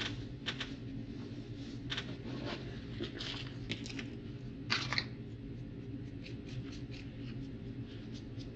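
Paper towels rustling and crinkling as used sheets are gathered up and a fresh sheet is laid down and smoothed by hand, in a series of short crackles with the loudest pair about five seconds in. A steady low hum runs underneath.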